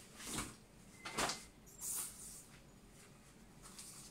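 PVC rain poncho rustling as it is handled and folded by hand, in a few short swishes, the loudest about a second in.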